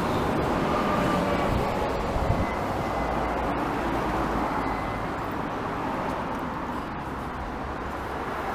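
Steady rumble and hiss of passing road traffic, with a light knock about two seconds in.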